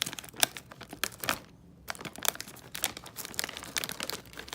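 Plastic snack-bag and card-pack wrapper crinkling as it is handled, a quick string of sharp crackles with a short pause about one and a half seconds in.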